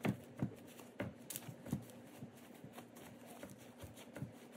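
Paper towels rustling and crinkling as they are pressed and patted onto raw chicken pieces, with several soft, irregular pats.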